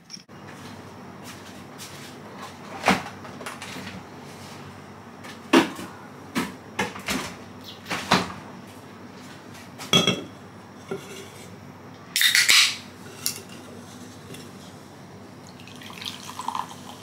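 Kitchen clatter: a glass and other things set down on a stone countertop, a string of separate knocks and clinks, with a short loud hiss about twelve seconds in. Near the end, cola starts pouring from a can into a glass.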